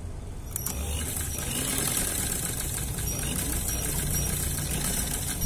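Sewing machine running steadily as it stitches a seam through the fabric, starting about half a second in.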